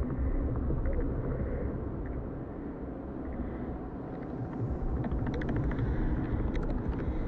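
Dense, low rumbling noise with scattered crackles and clicks, dipping a little in the middle and growing louder again about five seconds in.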